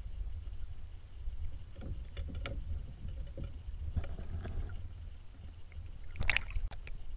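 Muffled water movement heard through a camera held under the pond surface as a hand releases a brook trout: a steady low rumble with scattered soft knocks, and one louder knock about six seconds in.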